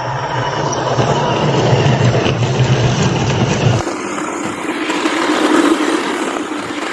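A 1/10-scale 4WD RC car driving over rough ground: dense motor and tyre noise. About four seconds in, the sound changes abruptly as the low hum drops out.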